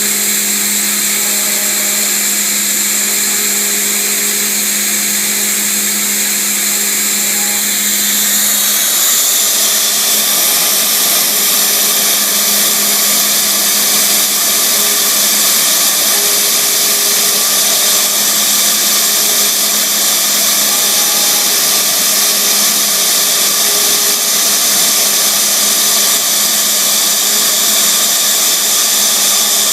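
Small home-built CNC router running as it carves a rubber hockey puck: steady spindle noise with short tones from the axes moving. About a third of the way in, a low hum stops and the sound turns higher and slightly louder.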